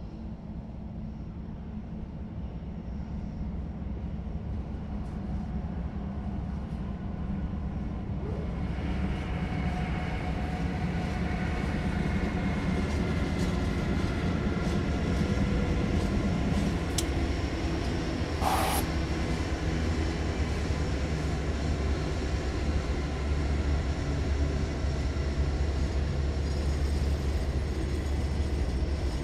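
CSX diesel freight train approaching and passing, its locomotive engine and rolling wheels growing louder over a low rumble. The engine's tones come in about a third of the way through, and there is a brief sharp noise about two-thirds in.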